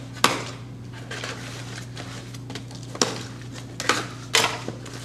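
Cardboard shipping case being cut open with scissors and its flaps pulled back: a few sharp snips and clicks, the loudest just after the start and more about three to four and a half seconds in, with cardboard scraping between. A steady low hum runs underneath.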